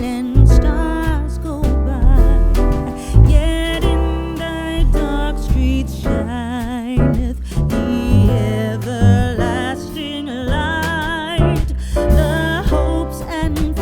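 Background music: a song with a sung melody over a steady bass line.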